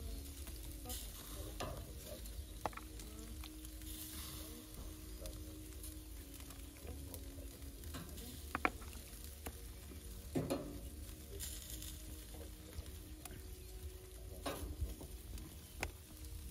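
Meat sizzling on a charcoal grill as marinated chicken pieces are laid on the grate with metal tongs, with a few sharp clicks of the tongs against the grill grate, the loudest about ten seconds in.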